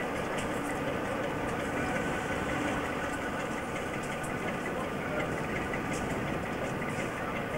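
Diesel locomotive engine running steadily as the locomotive moves slowly along the track with a rake of coaches.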